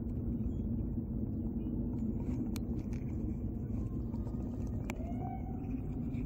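A steady low rumble, with a few faint clicks scattered through it.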